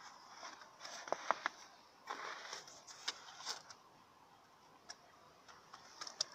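Faint footsteps crunching on snow, with a few sharp clicks, three close together about a second in.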